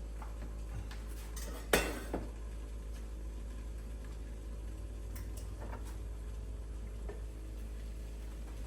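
Kitchen dishes and utensils clinking: one sharp clatter about two seconds in and a smaller clink just after, then a few faint clicks, over a steady low hum.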